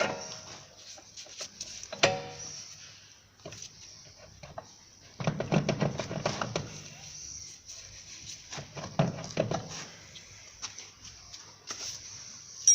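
Scattered metal clinks and knocks of hand tools and suspension bolts being handled while front upper control arms are refitted, with one short ringing clink about two seconds in and a flurry of knocks near the middle.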